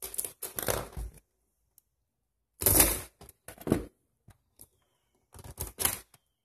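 Metal RC tank track links clattering and rattling against each other and the table as a length of track is handled, in three bursts of about a second each: at the start, again about two and a half seconds in, and near the end.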